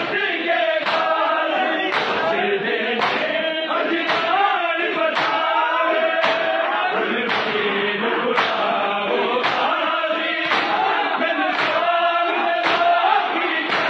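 Crowd of men chanting a Punjabi noha in unison while beating their chests with open hands, the slaps falling together about once a second.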